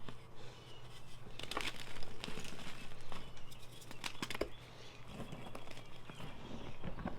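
Blocks of Ader magnesium-carbonate gym chalk, mixed with holi powder and glitter, being crushed by hand: irregular dry crunches and crumbling crackles. The crunches are thickest about one and a half seconds in and again around four seconds in.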